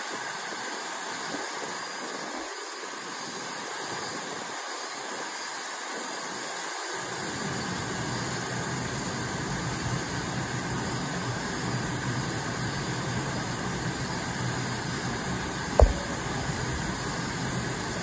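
Steady outdoor hiss of background noise, with a low rumble joining about seven seconds in. A single sharp knock comes near the end.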